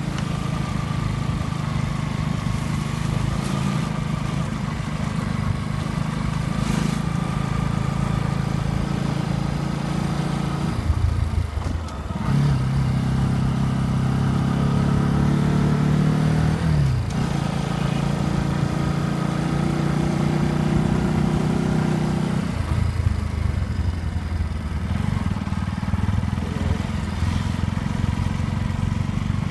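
Motorcycle engine running while riding, its pitch shifting with throttle and gear changes: it climbs about a third of the way in, drops sharply a little past the middle, and settles lower near the end.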